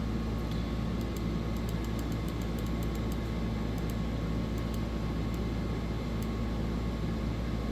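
Steady low background hum with a faint hiss, unchanging throughout, with faint tiny ticks scattered through it.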